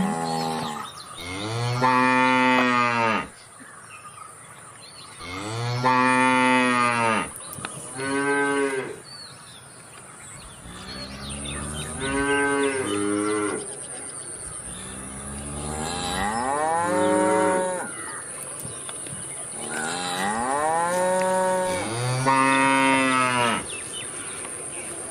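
Cattle mooing: a series of about six long moos separated by short pauses, each rising and then falling in pitch.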